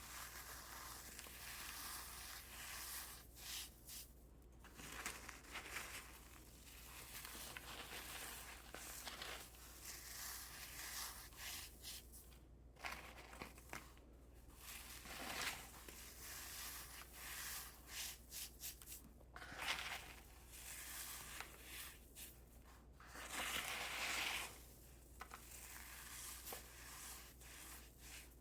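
Fragile reformed cornstarch being crushed and crumbled, giving soft, irregular crunches and crackles in uneven bursts with brief pauses between them.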